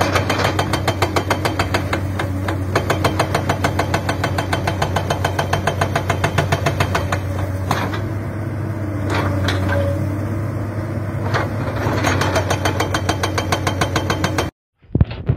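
Hydraulic breaker on a Komatsu PC200 excavator hammering into an earth-and-rock bank in rapid, even blows, over the steady drone of the excavator's diesel engine. It cuts off suddenly near the end.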